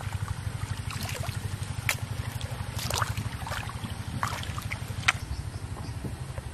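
A small engine running steadily with a fast, even pulse, under irregular splashes and squelches of hands and boots working in a muddy, water-filled ditch.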